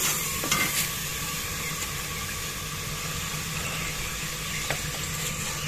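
Steady sizzling hiss of chicken cooking in a metal pot over a wood fire on a clay stove, with a few sharp crackles about half a second in and again near the end.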